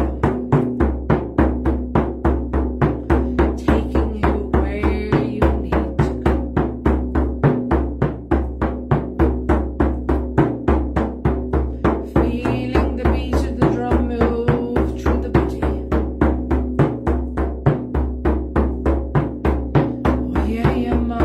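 Handheld hide frame drum struck with a beater in a steady, even rhythm of about three beats a second, each beat ringing deep.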